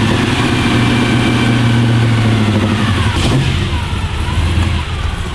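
Chevelle's 396 big-block V8 running just after being jump-started on a dead battery. It holds a fast, steady idle, then about three seconds in the revs drop and it runs lower and weaker toward the end.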